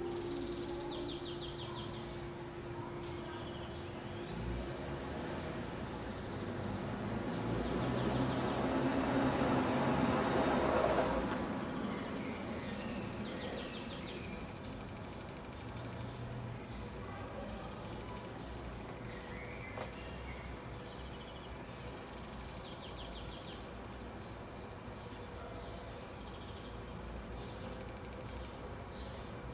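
Outdoor ambience with insects chirping in a steady, evenly spaced run of high notes and a few short bird-like trills. About a third of the way in, a broad rushing sound swells up and fades away again, the loudest thing here.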